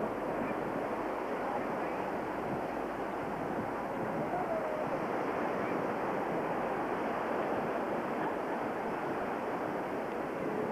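Steady rushing background noise with no distinct events, an even hiss on an old camcorder soundtrack.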